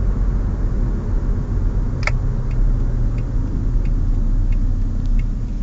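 A 1999 Honda Prelude's four-cylinder engine and road noise making a steady low rumble while driving. A sharp click about two seconds in is followed by faint regular ticks about every two-thirds of a second.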